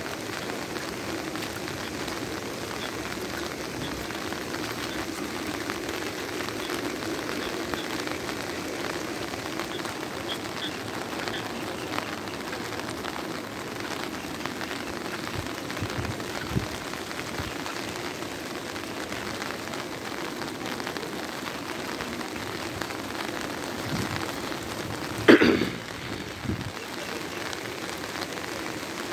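Heavy rain falling steadily, with a brief loud knock about 25 seconds in.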